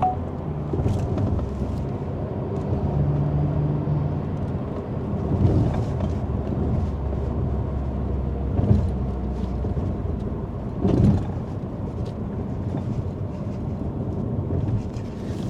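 Alpine A110's mid-mounted turbocharged four-cylinder engine running steadily on the move, with road noise, and a few brief louder swells about five, nine and eleven seconds in.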